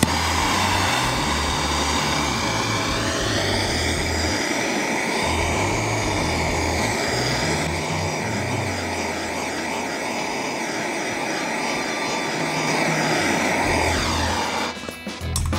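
A rotary power tool runs steadily, sanding down a fresh weld on the aluminium engine case. Its pitch rises as it comes up to speed, holds, then falls as it winds down and stops near the end. Background music with a steady beat plays underneath.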